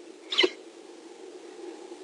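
Peregrine falcon giving one harsh, short cackling call near the start, over a faint steady hum.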